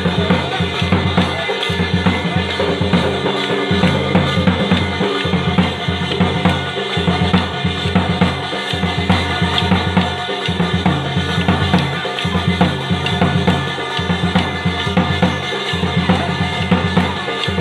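Dhol drums beating a dense, continuous rhythm, the drumming that accompanies a Rajasthani Gair stick dance.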